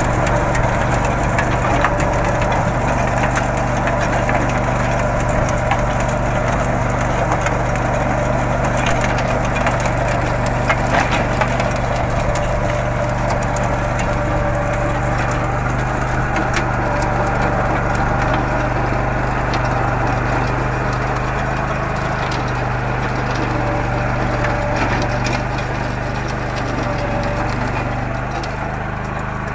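Swaraj Code compact tractor engine running steadily: a low, even hum with a dense rattling clatter over it, easing slightly near the end.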